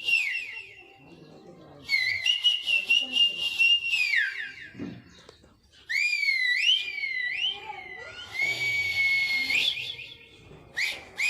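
A series of high whistle sounds. A long trilling whistle blast about two seconds in slides down at its end. A few seconds later come three quick rising-and-falling whistled sweeps, then a steady held whistle tone.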